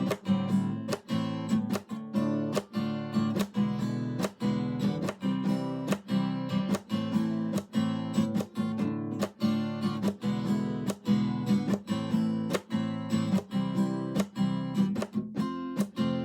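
Background music: acoustic guitar strummed in a steady rhythm, about two strums a second.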